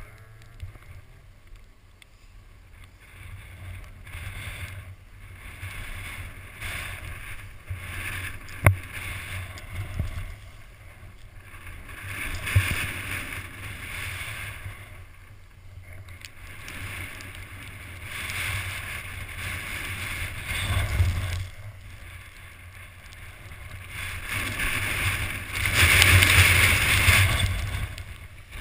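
Skis running through powder snow: a rushing hiss that swells and fades with each turn, loudest near the end, over wind rumbling on the microphone. There are a couple of sharp knocks partway through.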